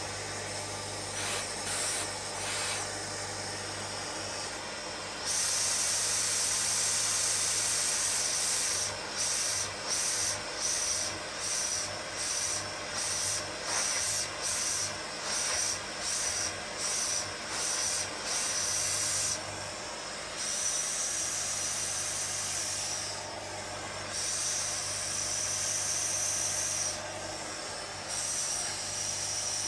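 Neakasa P0 Pro pet grooming vacuum running, its brush head drawn through a cat's fur: a steady motor hum under a strong airy hiss. The hiss gets louder about five seconds in, then dips and returns about once a second as the brush is stroked along the coat and lifted.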